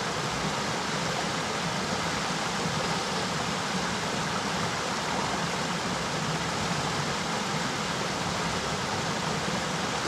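Steady rush of a mountain river's flowing water, an even unbroken noise.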